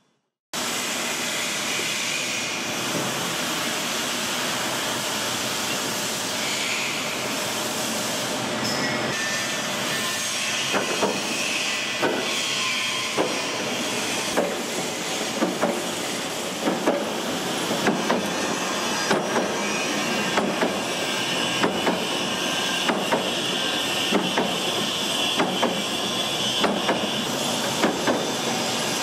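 Vertical slotting machine cutting a keyway into the bore of a steel sprocket: a steady machine hiss, with a sharp knock repeating somewhat faster than once a second from about ten seconds in.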